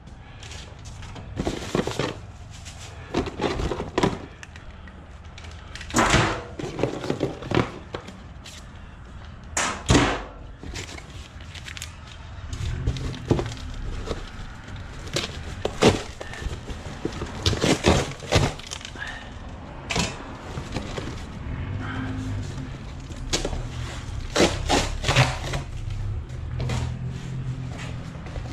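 Irregular clunks, knocks and clatter of scrap being handled and moved about by hand.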